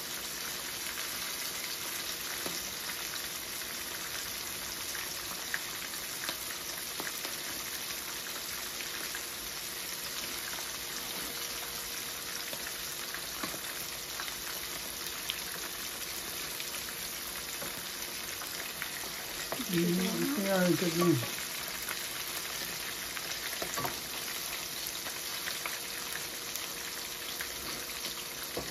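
Small whole fish sizzling steadily as they shallow-fry in oil in a nonstick pan. About twenty seconds in, a brief voice sound rises over the frying.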